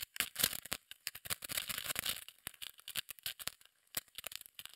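Steel mainspring of a Hamilton caliber 688 watch movement being worked out of its barrel by hand: an irregular run of small clicks and scrapes as the coils slip free against the barrel edge and fingertips.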